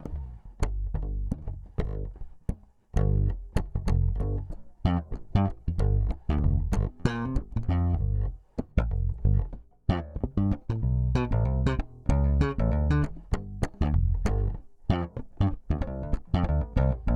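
1960s Teisco Beatle electric bass played as a steady run of plucked notes with sharp attacks and strong low tones, through a Zoom B3 processor with no EQ and a little compression. The playing breaks off briefly about three seconds in.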